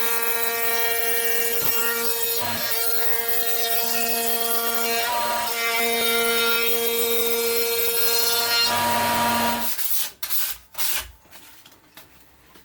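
Electric power tool running steadily while it shapes wooden pieces, rounding off one corner of each. It stops about nine seconds in, followed by a few short knocks of wood being handled.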